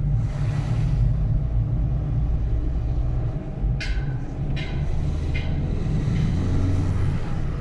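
Steady low rumble of a car on the move. Three short high chirps come about four to five and a half seconds in.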